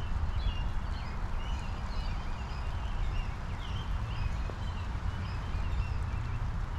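Steady rain shower with many backyard birds chirping in short, repeated calls over it, and a low rumble underneath.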